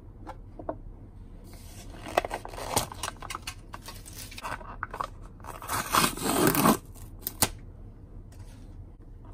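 A plastic yogurt tub being opened, its lid and inner seal pulled off: crinkling and tearing, loudest about six seconds in.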